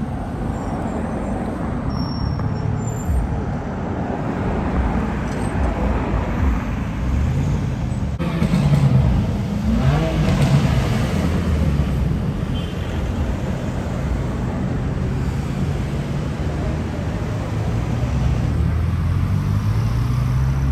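Busy city road traffic: engines of cars, vans and buses running in slow, queuing traffic. About halfway through, one engine's note rises and falls.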